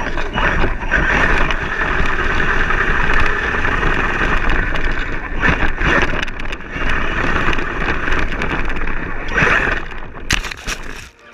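Axial Yeti RC rock racer driving over grass, heard from a camera mounted on the car: its electric motor and drivetrain whine steadily with tyre and chassis rattle. The sound eases briefly about six and nine and a half seconds in and falls away just before the end.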